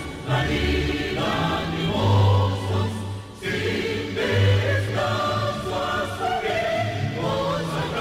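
A choir singing a slow piece with instrumental backing, sustained notes over a steady bass line.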